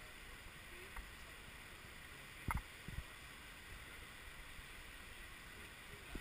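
Steady rushing of a stream, with a few soft knocks, the loudest about two and a half seconds in.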